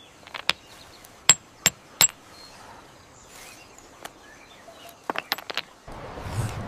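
Stone knocking on stone: a hammerstone striking rock in sharp, irregular clicks, a few in the first two seconds and a quick cluster around five seconds in. Near the end a denser, louder background noise comes in.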